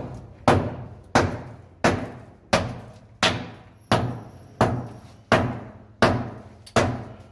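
Steady hammer blows, about one every 0.7 seconds, each ringing briefly in the bare room.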